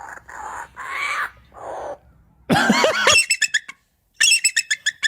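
A bird calling: a few breathy hisses, then a harsh squawk, then rapid runs of short, sharp notes, about ten a second, that rattle like machine-gun fire.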